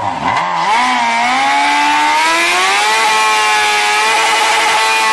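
Honda CB600F Hornet's inline-four engine revving during a stationary burnout, the rear tyre spinning on the pavement. The pitch climbs smoothly for about two seconds, then holds high and steady.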